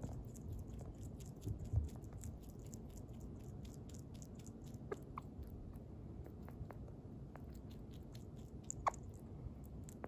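Sugar glider chewing and nibbling food, a steady patter of small wet clicks from its mouth. There is a soft low bump a couple of seconds in, and a brief squeak near the middle and again near the end.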